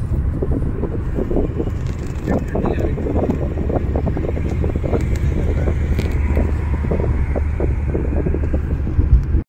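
Road noise inside a moving car's cabin at highway speed: a steady low rumble from tyres and engine, with short irregular knocks and rattles over it.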